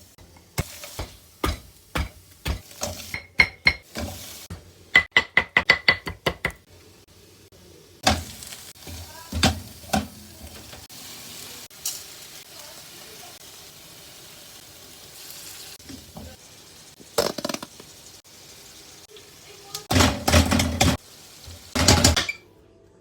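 Kitchen cooking sounds: metal utensils clinking and tapping against a pan or bowl, with a quick run of ringing clinks about five seconds in. After that comes a faint steady sizzle of food frying, broken by occasional knocks, and louder clattering near the end.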